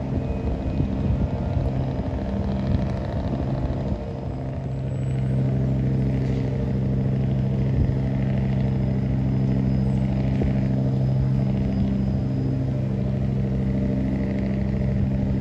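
Tugboat's diesel engine running steadily, a low even drone that grows a little louder about four seconds in.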